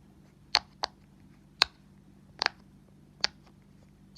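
Silicone Christmas-tree pop-it fidget having its bubbles pressed one at a time: about six sharp pops, a little under a second apart, one of them a quick double.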